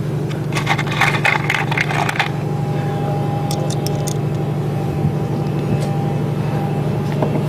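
A steady low machine hum, with a burst of scraping and clicking from about half a second to two seconds in: a screwdriver hand-tightening a number 8 pan-head screw to hold an underwater LED light in a boat hull. A faint steady whine sits over the hum afterwards.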